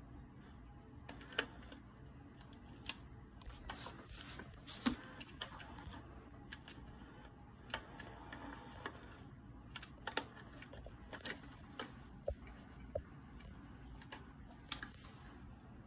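Irregular clicks and taps of a cat's paws and claws batting at a hard plastic pop-up mouse toy, about a dozen sharp ones spread unevenly through.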